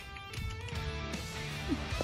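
Background music with guitar.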